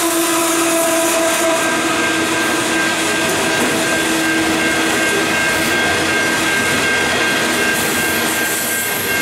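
Diesel-hauled coal train passing close by: the locomotives' engine tones fade over the first few seconds, then the coal hopper wagons roll past on the rails with a steady high-pitched tone over the wheel noise.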